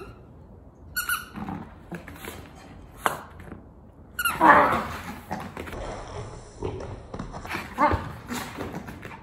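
Maltese puppy playing with a squeaky toy: several short toy squeaks, mixed with the dog's own play noises, loudest about four and a half seconds in.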